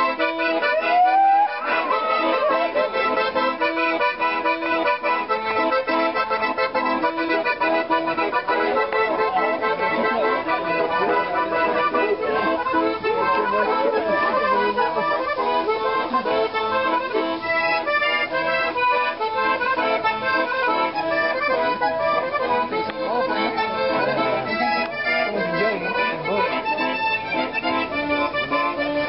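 Piano accordion playing a tune, held chords under a moving melody.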